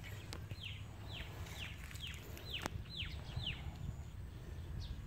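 A bird calling outdoors: a run of about seven short falling notes, about two a second, that stops about three and a half seconds in, over a low steady rumble.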